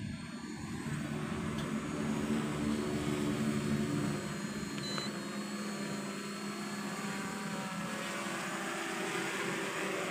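MJX Bugs 4W quadcopter's brushless motors and propellers buzzing steadily as the drone descends to land, its several motor tones running close together.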